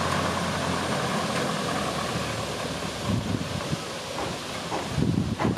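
An engine running steadily with a low rumble and a continuous hum. Rougher, uneven low thuds come in near the end.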